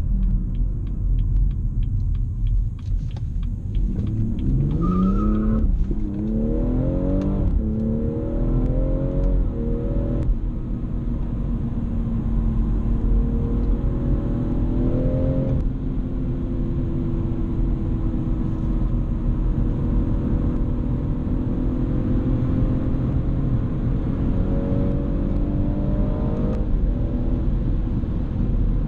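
BMW M240i's turbocharged 3.0-litre straight-six heard from inside the cabin, accelerating hard from about four seconds in. The engine note climbs in several quick rising sweeps, each cut off by an upshift. The car then settles into a steady high-speed cruise with the note rising slowly, with one more shift midway and a small drop near the end.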